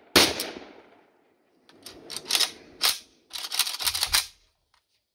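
A single shot from an Izhmash Saiga AK-pattern rifle in 5.56/.223 just after the start, ringing away over most of a second. Then a string of sharp metallic clicks and clacks as the emptied rifle is handled at its receiver and magazine.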